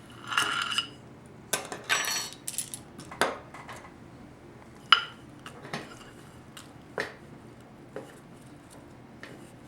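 Steel vanes and rotor parts of a 4L60E transmission pump clinking and tapping as they are fitted into the pump body: irregular sharp metallic clicks, a few of them ringing briefly.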